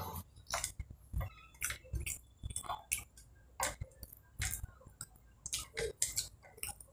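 Eating rice and curry by hand from a steel plate: fingers scraping and tapping the metal, with wet mouth smacks, heard as irregular short clicks a few times a second.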